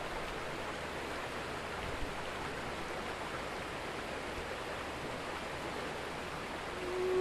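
River water rushing steadily over rocky rapids. Near the end a woman's humming begins, one held note that slowly falls in pitch.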